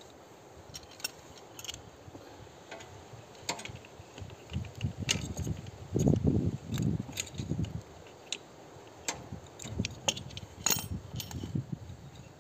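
A wrench and small steel parts clinking and clicking against a tiller engine's throttle-cable bracket, with dull handling knocks in between.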